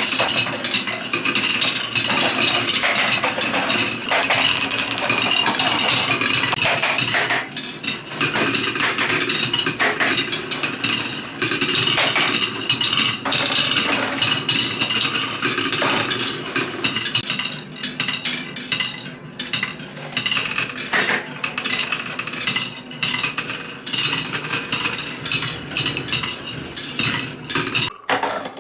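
Many marbles rolling and clattering down a marble run built on cans, a dense stream of clicks and metallic clinks that grows a little sparser in the second half and stops abruptly near the end.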